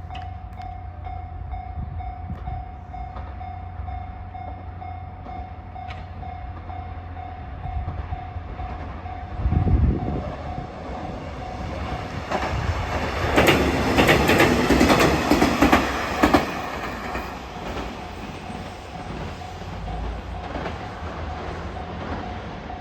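Japanese level-crossing warning bell sounding a single repeating tone while a train passes. The train's wheels clatter over the rail joints loudest from about 13 to 16 seconds in, drowning out the bell, which carries on after the train has gone.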